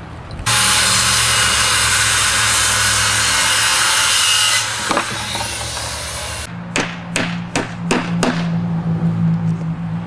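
Power saw cutting through framing lumber for about four seconds, starting and stopping abruptly, followed a couple of seconds later by five sharp knocks in quick succession.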